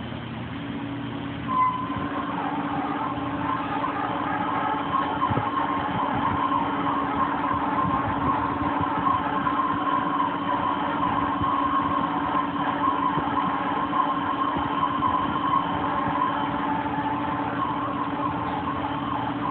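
2007 Harrison Alpha 1460XS CNC lathe with its spindle turning a workpiece: a steady machine hum with a higher steady whine over it, coming up within the first couple of seconds with a click and then holding level.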